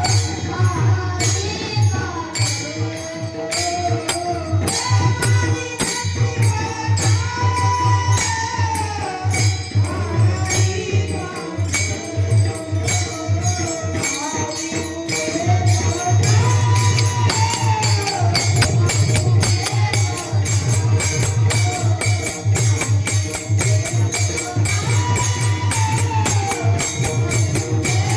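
Warkari devotional bhajan: a singer holds a slow, gliding melody over steady strikes of hand cymbals and a drum beat.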